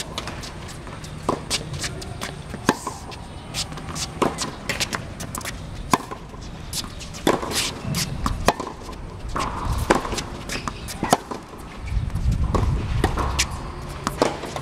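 Tennis rally on a hard court: sharp pops of rackets striking the ball and the ball bouncing, at irregular intervals, with a low rumble about twelve seconds in.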